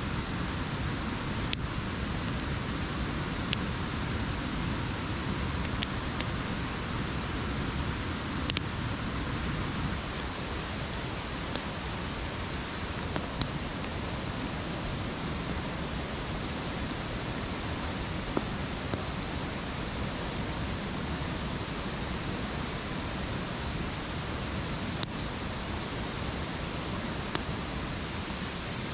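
Campfire of split logs burning, the wood crackling with a sharp pop every couple of seconds over a steady rushing noise.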